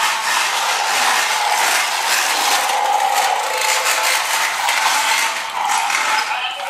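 Small motor and gears of a toy bulldozer running steadily, with a dense rapid clicking over a steady whine.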